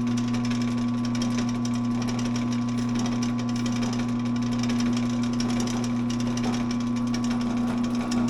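A workshop machine's electric motor running steadily, a constant even hum with no change in speed or load.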